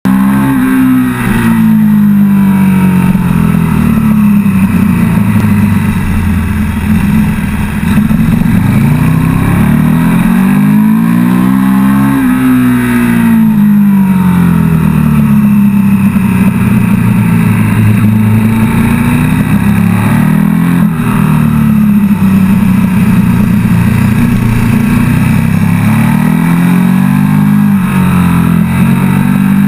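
KTM 1290 Super Duke GT's V-twin engine heard from on board at track pace, its revs climbing and dropping again and again every few seconds as the rider accelerates and slows through the corners.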